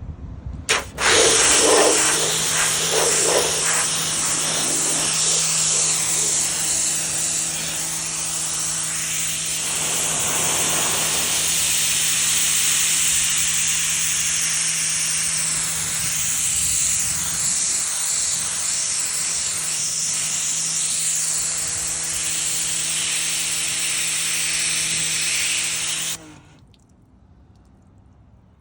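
Ryobi 40V brushless cordless pressure washer spraying plain water in power-boost mode through a 15-degree nozzle: a loud, steady hiss of the jet over a steady motor-pump hum. It starts about a second in and cuts off suddenly near the end when the trigger is released.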